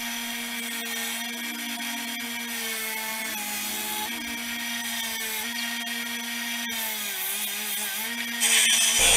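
1x30 belt sander with a 36-grit belt running unloaded, its motor giving a steady whine that wavers slightly in pitch. A louder hissing burst comes near the end.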